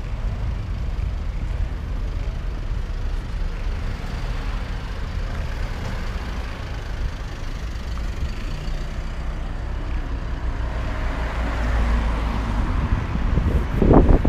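Night street traffic noise with wind rumbling on the microphone: a car's engine hum that stops about ten seconds in, then noise swelling over the last few seconds, with a short loud sound just before the end.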